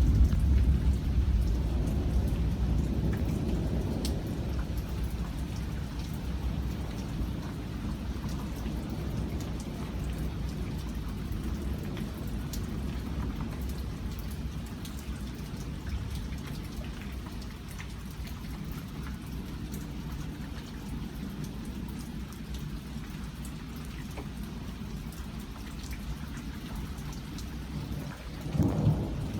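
Steady rain falling and pattering on surfaces in a strong thunderstorm, with a rolling rumble of thunder at the start that fades away over several seconds. A brief low rumble swells again near the end.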